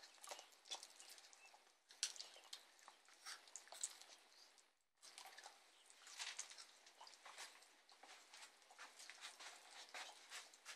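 Tortoises biting and chewing raw vegetables (tomato, cucumber, pepper, lettuce): faint, irregular wet crunching and clicking, briefly dropping away a little before halfway.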